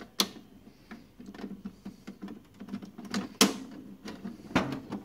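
Plastic parts of an opened inkjet printer's paper-pickup roller assembly clicking and knocking under the fingers as the roller is handled, with three sharper clicks: one right at the start, one a little past the middle and one near the end.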